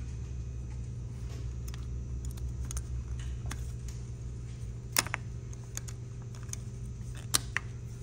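Small metal clicks and taps as locking-hub parts are fitted by hand into a wheel hub, with two sharper clicks about halfway through and near the end, over a steady low hum.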